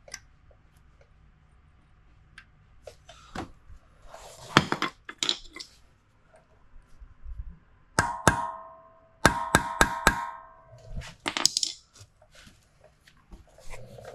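Metal tools clinking, then a hammer tapping a steel punch about six times about eight seconds in, each strike ringing on. The taps are centre-punching a broken bolt stuck in the engine case so it can be drilled out.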